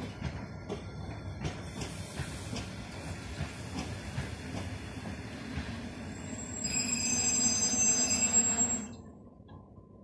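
Works train of track-maintenance machines rolling past, its wheels clattering and knocking over the rails. About two-thirds of the way in, a high, piercing metal-on-metal squeal builds and grows louder, then the sound drops away suddenly about nine seconds in.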